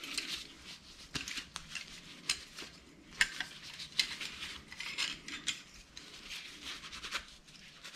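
Tongue-and-groove (Channellock) pliers handled and worked open and shut: irregular light metal clicks and clinks from the jaws and slip-joint pivot, several a second, with a rag rubbing over the steel.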